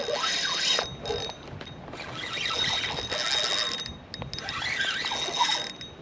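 Fishing reel being cranked in bursts, with a mechanical ratcheting whir, as a hooked fish is reeled in.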